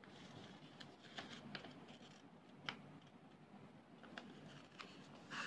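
Faint rustling and crinkling of a sheet of origami paper being folded and creased by hand, with several short sharp crackles, the sharpest about two and a half seconds in.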